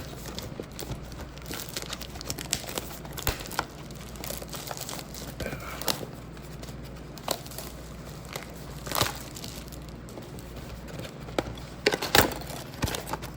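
Plastic wrapping crinkling and tearing as a sealed baseball card mega box is opened by hand, in irregular crackles with a few louder rips about nine and twelve seconds in.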